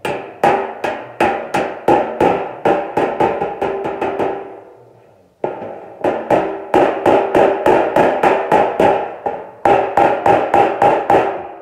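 Light, quick hammer-on-dolly taps on a steel hood side panel, a small door-skin hammer striking over a half-round dolly held underneath, about four taps a second, each one ringing. The run fades out about four seconds in and starts again a second later. The taps are knocking down a high spot in the dented panel.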